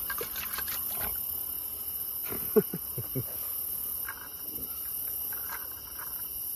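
Crickets chirping steadily in a high continuous trill. About two and a half seconds in, a short cluster of sharp knocks and low thuds cuts through, the loudest just at its start, with fainter clicks early on and again near the end.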